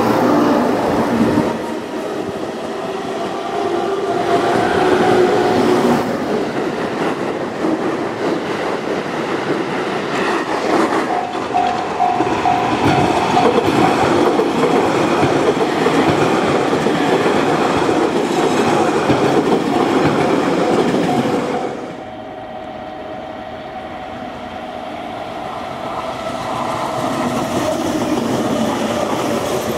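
JR Kyushu 813 series electric multiple-unit trains running past on the track, their wheels clattering over the rail joints, heard across several shots with a change of shot about three-quarters of the way through.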